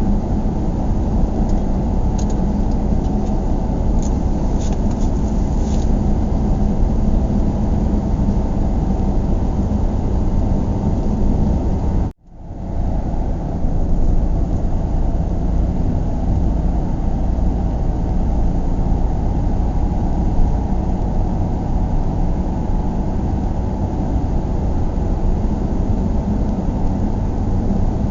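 Steady road and engine noise inside a moving car's cabin: a low, even rumble with little high sound above it. About twelve seconds in it cuts out abruptly for a moment and then fades back up.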